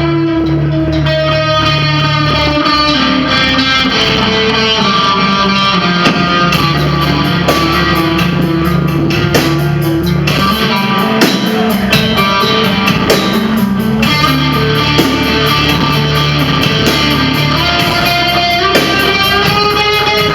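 Live band playing an instrumental passage: an electric guitar melody over bass notes, with a steady beat that comes in about six seconds in.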